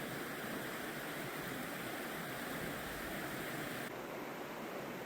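Steady rushing of a river, an even wash of water noise. About four seconds in the sound changes abruptly, losing some of its hiss.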